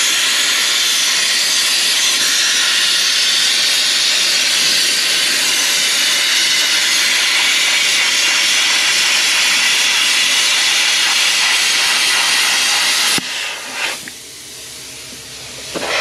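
Handheld air plasma cutter torch cutting through sheet metal: a loud, steady hiss of the arc and its air jet. It cuts off about thirteen seconds in, and a much softer hiss of the torch's post-cut air flow follows.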